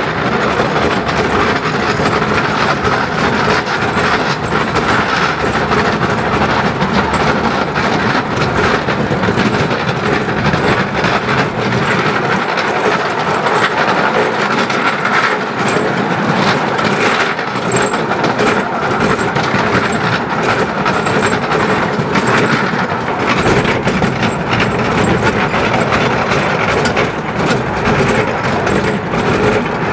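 Narrow-gauge Garratt steam locomotive and its train running along the line: a loud, steady rumble with a stream of clicks from the wheels over the rail joints.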